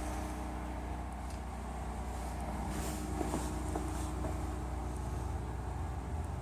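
Honda CRX engine idling steadily, with a few light clicks about three seconds in.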